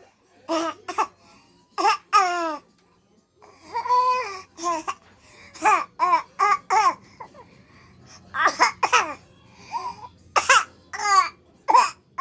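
A pet calling to get attention: a string of short, pitched calls that slide up and down in pitch, coming in clusters with short gaps, some of them cough-like.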